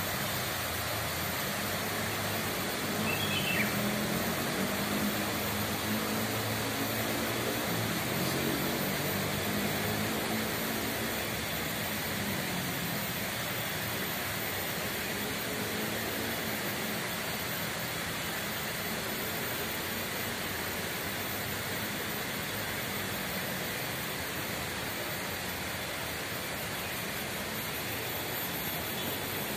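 Steady outdoor ambience: an even hiss with a low engine hum like distant road traffic, which swells over the first half and fades by the middle. A brief high chirp comes about three seconds in.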